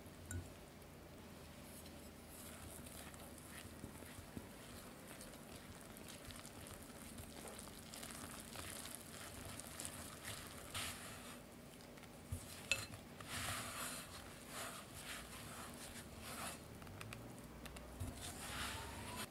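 Wooden chopsticks stirring flour and milk in a glass bowl: a soft, wet scraping and rustling that gets busier about halfway as the mixture clumps into shaggy bread dough, with an occasional sharp tap of the chopsticks on the glass.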